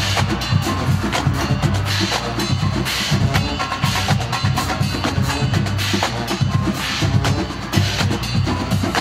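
College marching band playing, its drumline to the fore: a dense, driving pattern of snare drums over pulsing bass drums.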